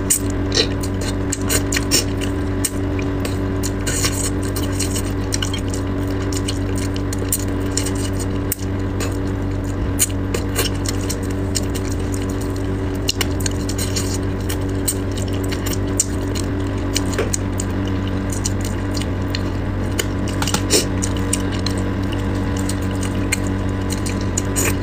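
Many small clicks and wet mouth sounds of someone eating braised fish with chopsticks and picking at the bones, close to a clip-on microphone, over a steady low hum.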